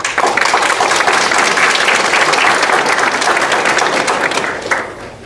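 Audience applauding, starting suddenly and fading out about five seconds later.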